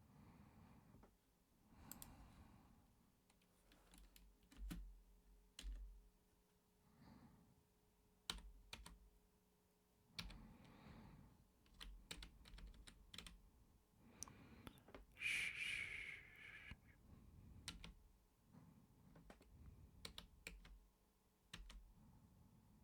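Typing on a computer keyboard: quiet, irregular key clicks, with soft hissing noises between them. The loudest hiss lasts about a second and a half, roughly two thirds of the way in.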